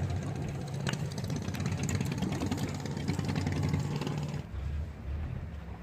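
Fishing boat's engine running steadily at a low note, with a sharp click about a second in. A little over four seconds in, the engine drops to a lower, quieter note.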